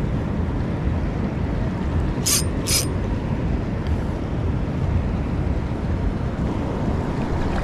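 Steady wind rumble on the microphone, with the open water around. About two and a half seconds in come two short, sharp clicks, half a second apart.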